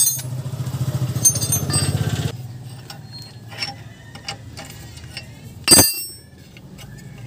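Hand tools working on a steel brake caliper: light metallic clicks and clinks, then one loud ringing metal clank a little before the end. A small engine runs with a steady pulsing hum for the first two seconds and cuts off sharply.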